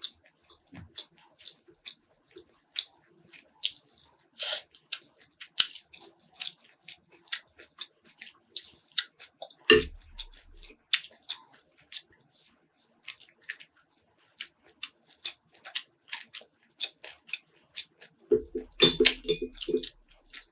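Close-up chewing and eating: irregular wet clicks and small crunches of food being chewed, with a brief low hum near the end.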